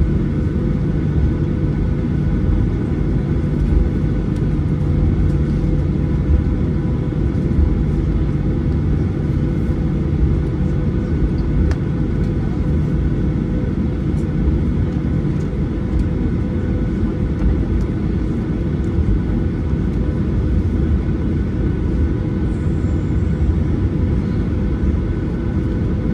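Cabin noise of a Boeing 737-800 taxiing, heard inside the cabin: the CFM56-7B engines' steady rumble at low taxi power, with a steady hum running through it.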